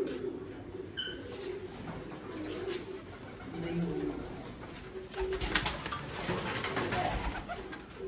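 Domestic pigeons cooing, low throaty coos throughout, with a burst of rustling and clatter from about five to seven seconds in.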